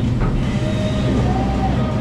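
Background music with a gliding melody line over a steady low hum.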